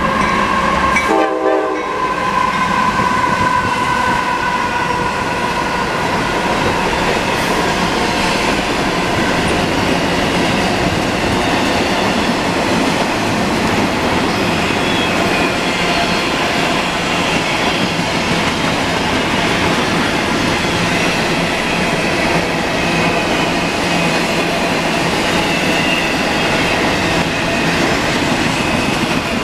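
A train passing close by: a steady, loud rumble of its wheels on the rails. A high steady tone in the first few seconds fades away.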